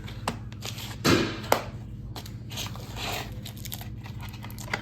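A plastic DVD case and disc being handled: scattered clicks and rustles, with a thud about a second in and a sharp click just after it, over a steady low hum.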